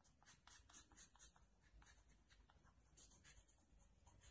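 Faint, rapid scraping of a blade across a soft pastel stick, shaving off chalky powder in quick strokes of about six a second, with a short pause in the middle.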